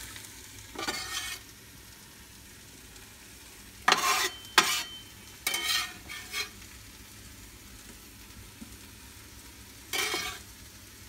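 Meat sizzling quietly in an electric pressure cooker on sauté, broken by several short scrapes and clinks of a stainless steel bench scraper scooping beef cubes off a stone counter; the loudest, about four seconds in, has two sharp clicks and a brief metallic ring.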